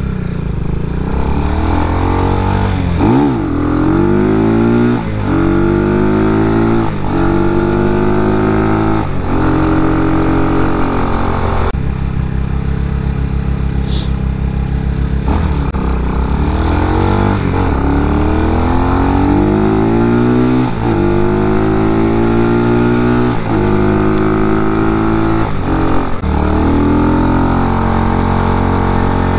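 Air-cooled single-cylinder CG250 engine (a 230cc thumper) in an RPS Condor motorcycle accelerating up through the gears: the engine note climbs in pitch in each gear, then breaks and drops at every upshift. There are two such runs of shifts, with a short lull near the middle. It runs through its stock exhaust, which the rider judges restrictive at high revs.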